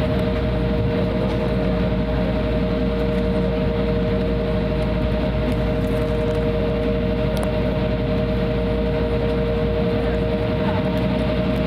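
Cabin noise of an Embraer 175 taxiing, heard from a seat by the wing: its GE CF34-8E turbofans at idle give a constant rumble and hiss with a steady two-note hum over it.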